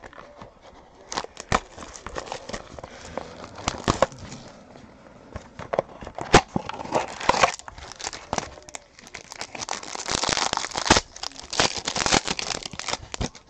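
A basketball trading-card box and the foil pack inside it are torn open by hand, the wrapper crinkling with many sharp crackles and snaps. There is a longer stretch of steady crinkling about ten seconds in.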